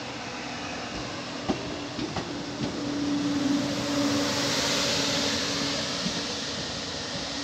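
Double-unit Alstom Coradia Stream "Pop" (ETR104) electric train rolling past at close range. Its wheels click sharply over rail joints a few times, a steady motor hum runs under it, and a rushing hiss of running gear swells in the middle and eases off as the rear car goes by.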